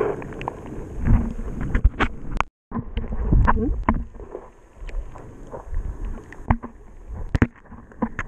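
Muffled underwater sound picked up by a camera held below the surface: low water movement with irregular clicks and knocks as the camera housing is handled and bumps about. The sound drops out completely for a moment about two and a half seconds in.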